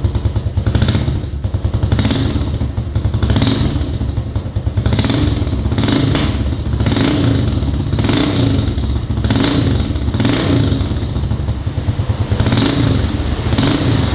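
Honda Biz 125's single-cylinder four-stroke engine running through an aftermarket Roncar crackle exhaust, blipped over and over about once a second, with the exhaust popping and crackling on each blip. The exhaust is mounted without its header gasket, so it also leaks compression at the joint with the engine.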